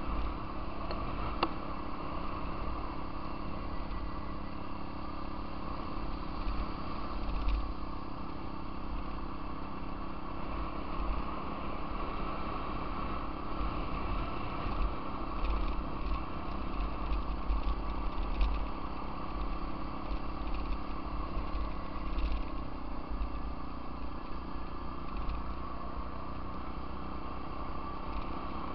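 Off-road vehicle engine running at a steady cruise along a gravel trail, its pitch easing down a little about two-thirds of the way through. Wind buffets the microphone, with a few small clicks and knocks from the ride.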